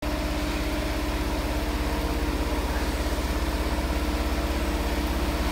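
High-speed (1500 RPM) multi-needle quilting machine running steadily, with a rapid, even low beat and a steady hum.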